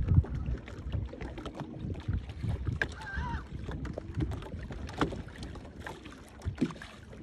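Boat moving slowly on an electric trolling motor: an uneven low rumble of water and wind with scattered light knocks and clicks. A short warbling chirp about three seconds in.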